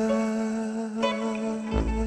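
Slow song music: a long held note over a deep bass tone, with a fresh note struck about a second in.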